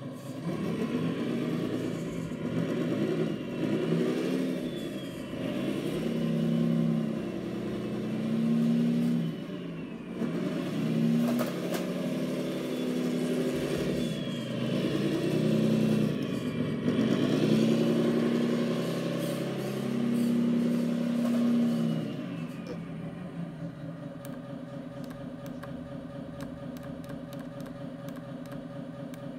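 Electronic sound module of an RC model Scania T530 Torpedo truck playing a diesel truck engine sound, revving up and down repeatedly as the truck drives. About 22 seconds in it drops to a steadier, quieter idle.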